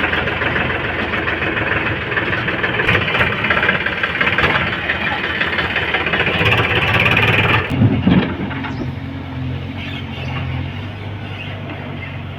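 Diesel engine of a backhoe loader running hard under load. About eight seconds in a heavy thud is heard, and the engine then drops back to a steadier, lower run.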